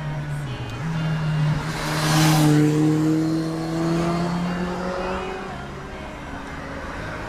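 A motor vehicle passing close by, loudest about two and a half seconds in, its engine note rising as it accelerates.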